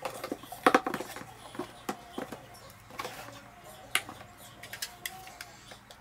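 A run of light clicks and knocks, hard objects being handled, with a quick rattle of clicks about half a second in.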